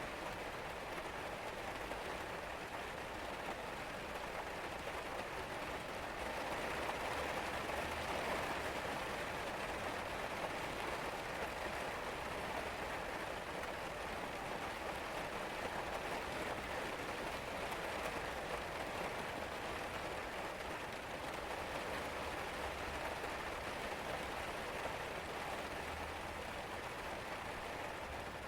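Steady rain falling, an even patter of drops that swells a little several seconds in.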